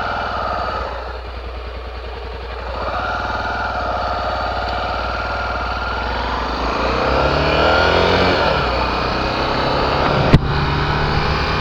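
Honda XR 250 Tornado's single-cylinder four-stroke engine running as the motorcycle moves off and rides on. It is quieter for the first few seconds, then its pitch rises and falls as it revs up. There is one sharp click near the end.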